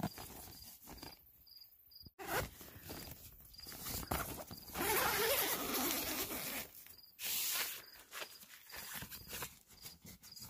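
Nylon tent door zipper being worked by hand, with the tent fabric rustling as it is handled; the longest, loudest stretch comes about five to seven seconds in, with a shorter burst just after.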